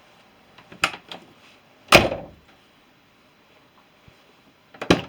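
1985 Audi Coupe GT door being worked through its newly fitted handle: a few sharp latch clicks and knocks, the loudest about two seconds in and another pair near the end. The latch is releasing and catching properly.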